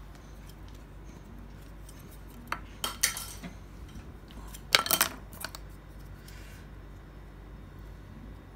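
Small sculpting tools being handled and set down, clinking and knocking in two short clusters, about three seconds in and again, louder, about five seconds in, over a low steady hum.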